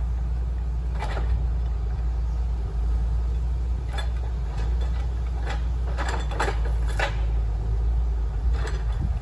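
2003 Fabtek forwarder's diesel engine running with a steady low drone as the loaded machine travels, with a handful of short sharp knocks and cracks, most of them between about four and seven seconds in.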